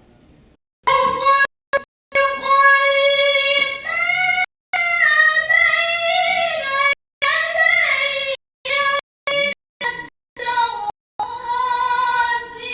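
A woman's voice reciting the Qur'an in melodic tilawah style, drawing out long ornamented notes whose pitch bends and wavers, in phrases broken by brief silences. The voice comes in about a second in.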